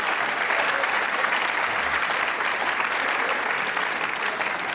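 Theatre audience applauding: dense, steady clapping from many hands that starts to die down near the end.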